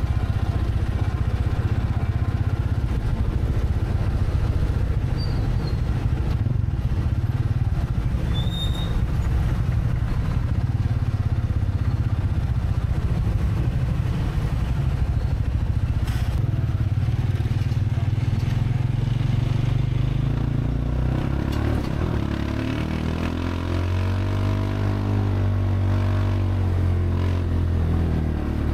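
A motor vehicle's engine running with a steady low rumble. About twenty-two seconds in, the engine note rises and then falls again over several seconds.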